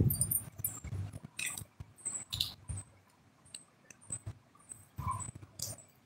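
Irregular light clicks and taps, some with a soft low thump, scattered unevenly with no steady rhythm.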